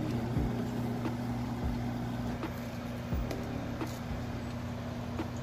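A 1.5 hp LG window-type air conditioner running with a steady hum from its compressor and fan, with a few light clicks.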